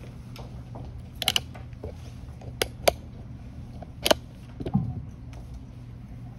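Handling noise: a scattering of sharp clicks and knocks and a duller thump about three-quarters of the way through, over a steady low hum.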